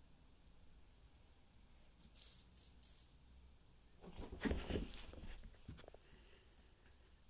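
A domestic cat hissing in three or four short bursts, then a brief scuffle about four seconds in as the cats swat and lunge at each other: thumps, with fur and fabric rustling.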